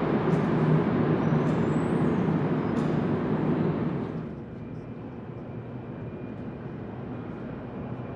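Montréal Métro MR-73 rubber-tyred metro train running in the tunnel, a loud even rolling noise with a few sharp clicks. About four seconds in it drops to a much quieter steady hum of the station.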